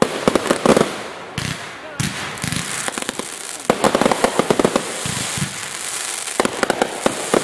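Aerial fireworks going off: clusters of sharp bangs and pops near the start, in the middle and near the end, with a steady crackle and hiss between them.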